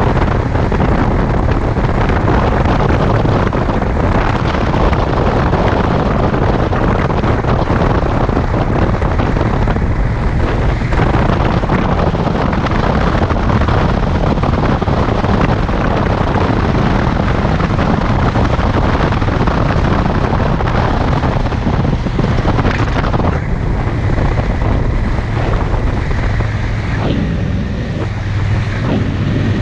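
Wind rushing over the microphone of a motorcycle-mounted camera at road speed, with the motorcycle's engine running steadily underneath. Near the end the wind eases a little and a steady low engine drone comes through more clearly.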